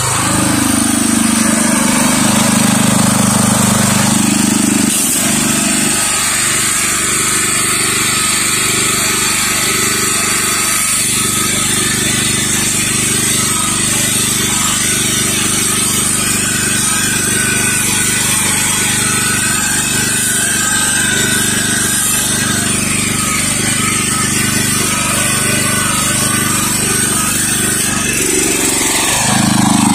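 Trailer-mounted pressure washer's engine and pump running steadily, pushing clean water through the downstream chemical injector to flush it out, with the water hissing out onto the pavement. The low engine tone changes about five seconds in, then holds.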